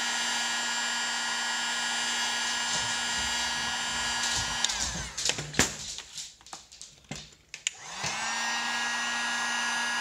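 Handheld electric heat gun running with a steady fan hum and whine, heating a flat 3D-printed plastic blank. About halfway through it is switched off and winds down, a few sharp clicks and knocks follow, and near the end it is switched back on and spins up to speed.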